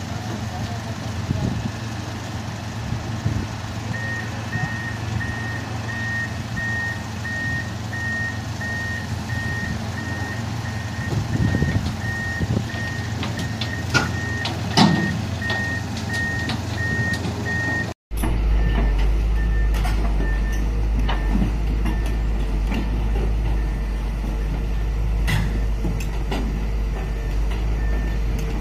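Heavy-equipment backup alarm sounding steady, evenly spaced high beeps over a running diesel engine, with a few metallic clanks. Partway through, the engine sound becomes a deeper, steady rumble while the beeping goes on.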